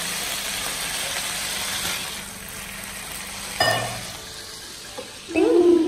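Food sizzling in a hot frying pan, loud for about two seconds and then quieter. There is a single sharp knock about three and a half seconds in, and a brief voice sound right at the end.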